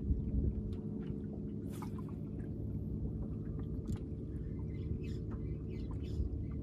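Water lapping and slapping against a small fishing boat's hull, with scattered light splashes and ticks over a steady low hum.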